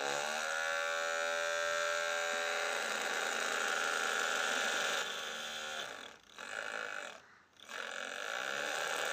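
A Ferrari engine sound: a steady, high engine drone whose pitch shifts right at the start, cuts out briefly twice around six and seven seconds in, then rises again near the end.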